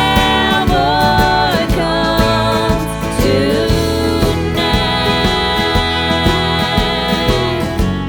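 Music: a song with a held, sliding lead melody, possibly sung, over a steady beat and bass.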